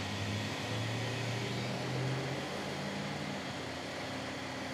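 Steady hiss with a faint low hum that drifts slightly upward in pitch.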